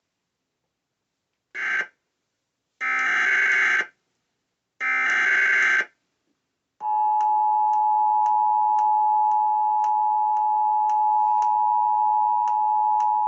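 Emergency Alert System SAME header: three bursts of warbling digital data tones, the first brief and the next two about a second long. About seven seconds in comes the steady two-tone EAS attention signal (853 and 960 Hz), which announces the start of an emergency alert.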